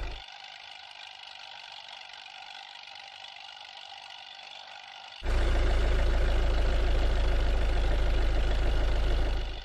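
Quarry truck engine running steadily, cut abruptly between a quieter stretch and a loud, deep rumbling stretch that starts about five seconds in and drops away again near the end.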